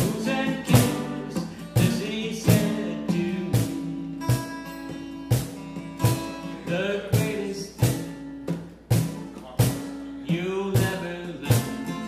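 A man singing to his own strummed acoustic guitar, chords struck about once a second with held sung notes between them.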